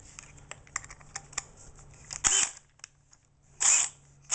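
Power drill being handled as a long drill bit is fitted in its chuck: light clicks and taps, then two short bursts of noise about a second and a half apart.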